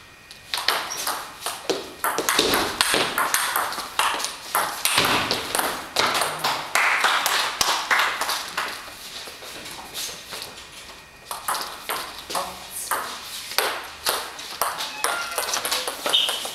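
Table tennis ball clicking sharply off rackets and table in a rally, several hits a second, with a brief lull about eleven seconds in.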